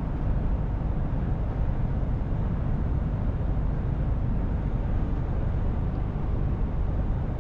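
Steady low rumble inside the cab of a Mercedes-Benz Actros L truck cruising at about 80 km/h: its 480 hp engine running under light load and the tyres on the road.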